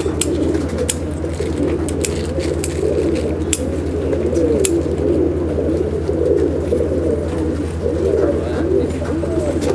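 A loft full of Andhra flying pigeons cooing together in a continuous, overlapping chorus. Under it runs a steady low hum, with scattered sharp clicks.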